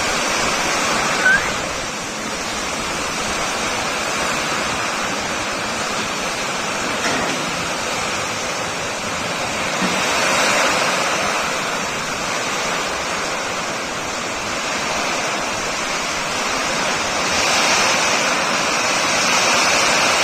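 Heavy downpour in a rainstorm: a steady, dense hiss of pouring rain that grows a little louder near the end.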